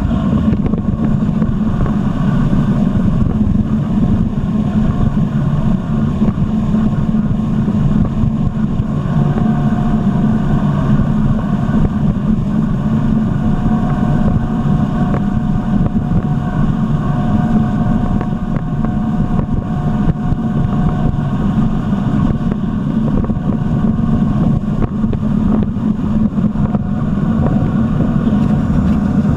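Jet ski engine running steadily at speed, with a low drone and wind on the microphone.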